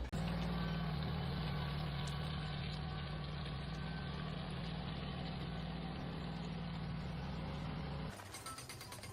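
An engine running steadily at an even pitch, dropping away to a quieter stretch near the end.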